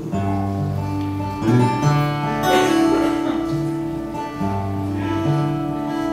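Two acoustic guitars playing an instrumental break together, strummed chords ringing under held, picked notes at a slow pace.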